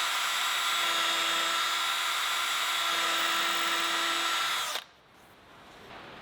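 Electric power sander running steadily with a whine while lightly sanding wooden drawer fronts, then switching off sharply about five seconds in.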